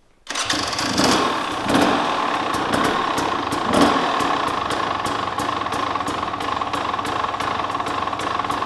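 2023 KTM 300 XC TBI two-stroke dirt bike engine, breathing through an FMF Factory Fatty expansion chamber and PowerCore 2.1 silencer, comes in suddenly, is blipped a few times in the first four seconds, then settles into a steady idle.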